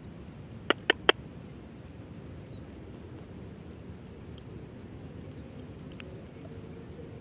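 An insect chirping in a steady high-pitched pulse, about four to five chirps a second, fading in the later part. About a second in, three quick, sharp chirps come close together and stand out loudly.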